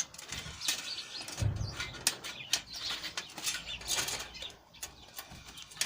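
Scattered light clicks and scrapes of a toaster's thin metal heating-element panel and its end crimps being bent and worked by hand, with a dull knock about a second and a half in. House sparrows chirp in the background.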